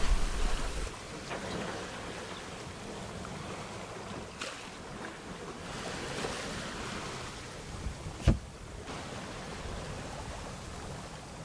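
Water hissing and rushing along the hull of a sailboat under sail, with wind on the microphone, heaviest in the first second. A single sharp knock about eight seconds in.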